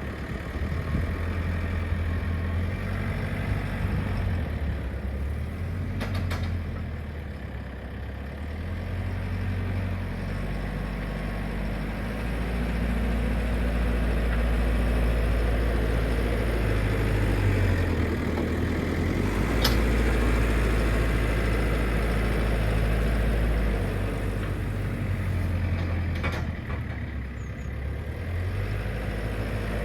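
JCB 4CX backhoe loader's diesel engine working, its note rising and falling with load as the front bucket levels stone, with a few sharp knocks.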